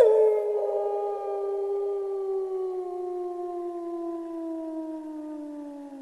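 A wolf howling: one long call that starts with a quick upward swoop, then holds a clear tone that slowly falls in pitch and fades over about six seconds.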